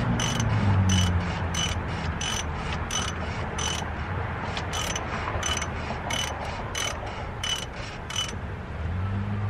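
Ratchet wrench worked in short, even strokes, each stroke a sharp ringing click, about one and a half a second, tightening a fastener during an oil change; the strokes stop about eight seconds in. A low hum fades out at the start and returns near the end.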